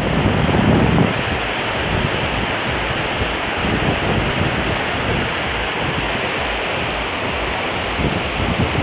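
Mountain stream water rushing down from the mountainside, a steady flow of noise. A low buffeting of wind on the microphone stands out in the first second.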